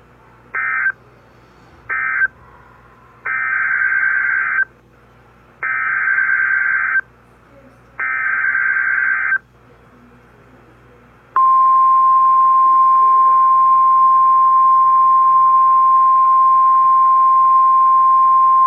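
NOAA Weather Radio alert signalling: two short bursts of warbling digital tones (the end-of-message code), then three longer bursts (the SAME header for a new alert). After a pause, the steady single-pitch Warning Alarm Tone near 1,050 Hz begins about 11 seconds in, announcing the next warning.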